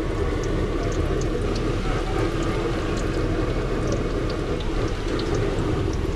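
Steady sizzle and burner noise from a gas-fired wok of frying oil, with scattered faint pops, while boiled eggs are turned by hand in a bowl of thick batter.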